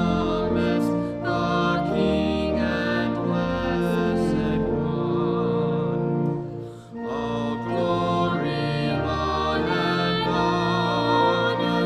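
Slow church music with long held notes, some with vibrato, and a brief pause between phrases about seven seconds in.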